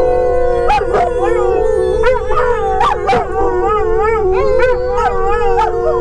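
A dog and two people howling together in long, overlapping, wavering howls, over the low, steady rumble of a truck cab on the road.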